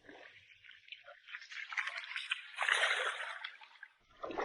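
Shallow seawater splashing and sloshing while a fish is chased by hand, with a louder splashing rush about two and a half to three seconds in.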